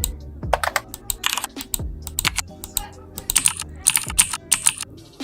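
Mechanical-keyboard key clicks played by the Mechvibes sound app as keys are typed, in quick irregular runs. Faint background music with a steady beat underneath.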